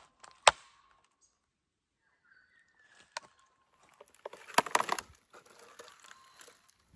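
Footsteps through dry bush with sticks and twigs cracking underfoot: one sharp crack about half a second in, another a little after three seconds, and a run of crunching and snapping from about four to five and a half seconds.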